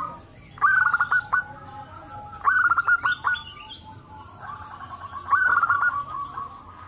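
Zebra doves cooing: three loud bursts of rapid, staccato notes about two seconds apart, with softer cooing from other doves running underneath.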